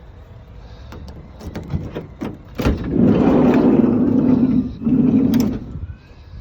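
Renault Master van's sliding side loading door unlatching with a click, then rolling along its runner in a loud rumble for about a second and a half, followed by a shorter second run.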